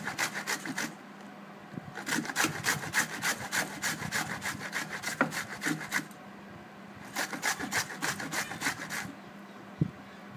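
Raw green mango being grated on a hand grater: quick rasping strokes, about four a second, in runs broken by short pauses. A single knock near the end.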